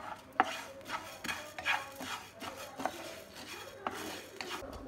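Wooden spatula scraping and stirring broken rice as it dry-roasts in a metal pan, the grains rattling against the pan in an irregular run of scrapes and clicks, with a few sharper strokes.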